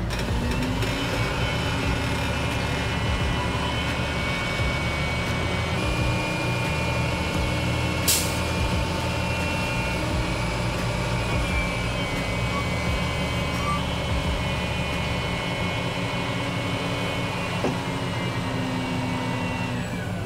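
Roll-off truck hoisting a loaded steel dumpster onto its bed: diesel engine running under load with steady whining tones from the hoist. A brief sharp hiss-like sound comes about eight seconds in, and a small knock near the end.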